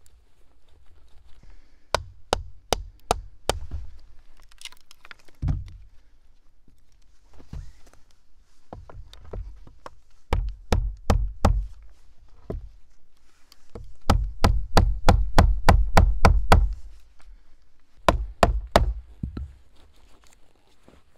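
A knife blade being driven into the end of a wooden pole with repeated blows, splitting the wood. The sharp wooden knocks come in four bursts, the longest and loudest about four a second past the middle.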